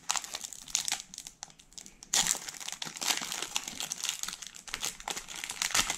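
Foil-lined Pokémon booster pack wrapper being torn open and crinkled by hand: irregular crackling and rustling, loudest about two seconds in.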